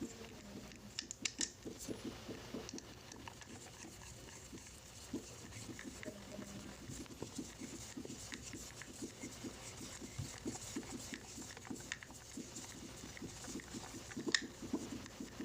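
Faint, irregular clicking, tapping and scraping of small plastic parts and screws being handled while a nebulizer is put back together by hand, with a few sharper clicks, the loudest near the end.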